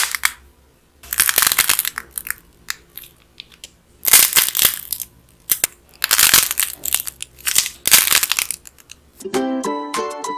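Dried clay bread replicas squeezed and cracked in the hands: several spells of crisp crackling and crunching as the hardened clay breaks, with quieter gaps between. Plucked-string music starts shortly before the end.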